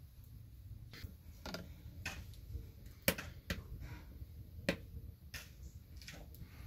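Irregular light clicks and taps, the loudest about three seconds in, as crumbled white cheese and fingers hit a glass bowl of chopped spinach, over a low steady rumble.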